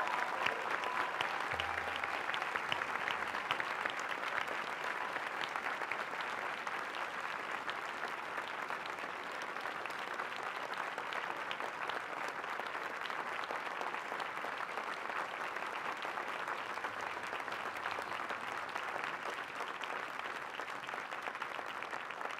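Sustained applause from a large audience, a dense steady clapping that eases off slightly toward the end.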